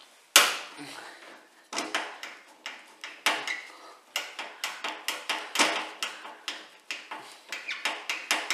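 A screwdriver working screws out of a washing machine's steel hinge bracket, making a string of sharp metallic clicks and taps. There is one loud click about half a second in, then about three clicks a second.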